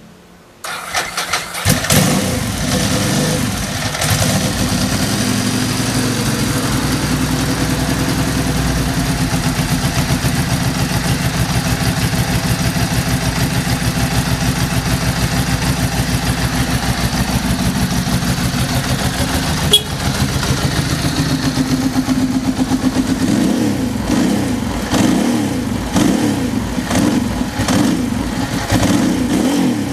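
Ducati Multistrada 1000's air-cooled L-twin engine cranked on the electric starter, catching on the first try, then idling steadily with a healthy, even beat. A single sharp click about twenty seconds in, and the idle turns more uneven and pulsing near the end.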